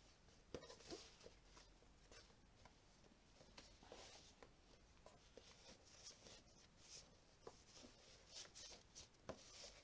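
Faint rustling and scattered small clicks of a fabric ribbon being picked at and worked loose from a tight knot on a flat cardboard gift box.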